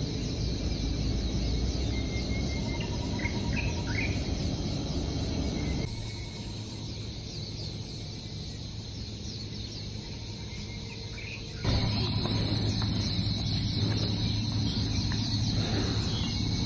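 A steady, high-pitched chorus of insects, with short bird chirps over it in the first few seconds and again near the end. The sound drops abruptly about six seconds in and comes back louder near twelve seconds.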